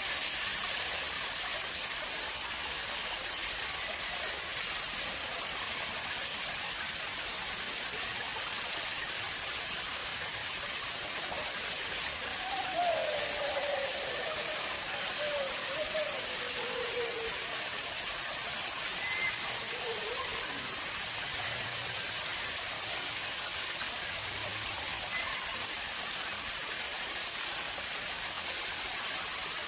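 Water flowing steadily into a man-made pond: an even, continuous rush of falling and splashing water. A faint wavering pitched sound rises and falls briefly about halfway through.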